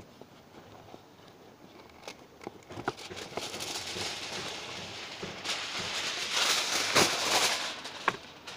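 Aluminium foil being pulled from its box and crinkled: a few clicks at first, then a rustling crinkle that grows louder, loudest about seven seconds in.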